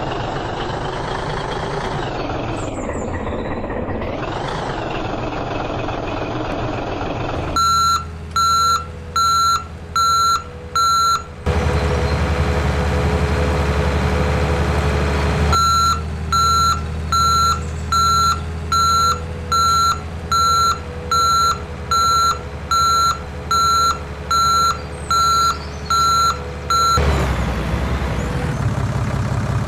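A heavy vehicle's engine runs with a couple of rising revs. Then a reversing alarm sounds: a regular high beep about one and a half times a second, in a short run and then a longer run over the engine's steady drone.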